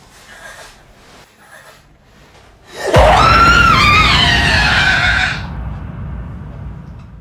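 Quiet at first, then about three seconds in a sudden, loud, high-pitched scream lasting about two and a half seconds, over a deep rumble that fades away after the scream stops.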